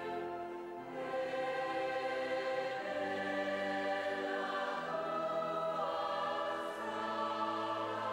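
Choir singing a slow hymn in long held chords that change every second or two.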